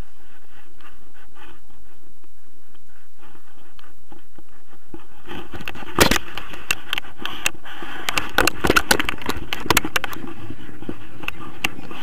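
Wind rushing over an action camera's microphone in flight, with a burst of crackles and knocks from about five seconds in as the camera mount is moved and handled.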